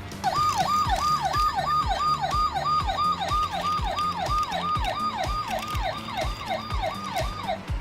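Electronic toy police siren: a fast, repeating wail whose pitch sweeps down about three times a second, cutting off near the end. It plays over background music with a steady beat.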